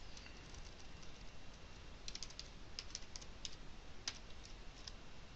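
Computer keyboard keys typing faintly: a quick run of keystrokes starting about two seconds in, then a few single key clicks.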